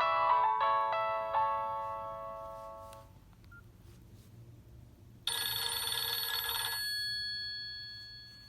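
Nokia 6681 ringtones playing from the phone's loudspeaker: a short melody of bell-like notes finishes and rings away about three seconds in. About five seconds in, another tone starts with a bright, dense chord that lasts about a second and a half and then fades.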